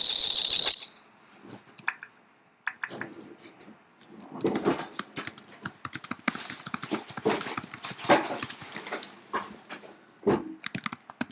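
A loud, high-pitched steady whistle tone that cuts off just under a second in, followed by typing on a Mac laptop keyboard: irregular key clicks, sparse at first and then densest in the middle.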